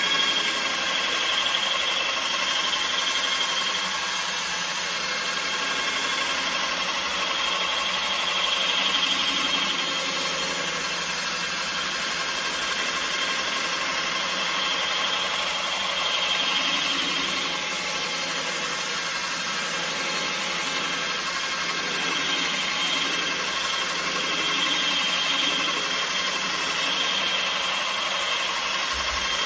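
Cordless 18V drill with a right-angle attachment spinning a foam polishing pad, running steadily as it buffs cutting compound over a plastic headlight lens. Its high whine swells and eases now and then as the pad is pressed and moved across the lens.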